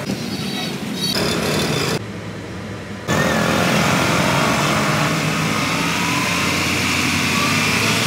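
Honda car engine running steadily at idle, a dense even noise over a low hum. It is preceded by a few seconds of quieter, shorter clips that cut abruptly into one another.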